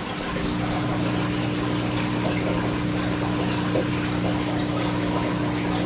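Saltwater aquarium pump humming steadily with a low electric drone, over the hiss of circulating water.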